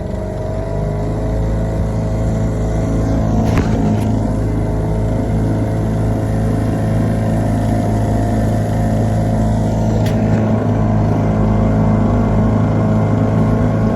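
Boat motor running steadily at an even pitch.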